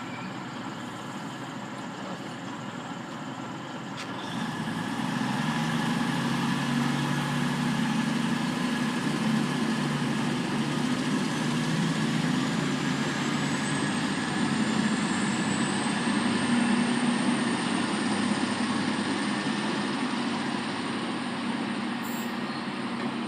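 V/Line VLocity diesel multiple unit pulling out of the station. About four seconds in, its diesel engines grow louder and run steadily under load, with a high whine slowly rising in pitch past the middle.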